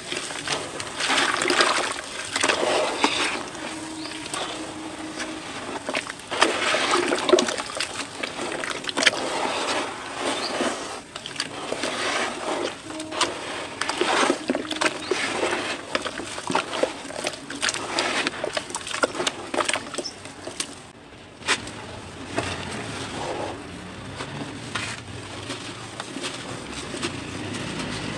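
Hands squeezing and swirling wet cement slurry in a bucket of water, a wet sloshing and squelching in irregular bursts. About three-quarters of the way through it stops briefly and gives way to a steadier, duller rustle as a dry concrete chunk is crumbled.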